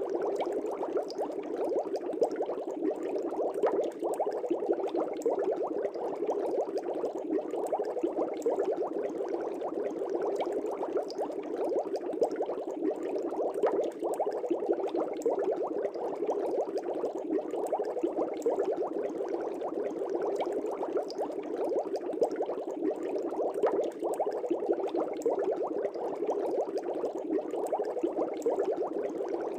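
Fish-tank air bubbles bubbling steadily, a dense, continuous burble of many small bubbles rising and popping at the water surface.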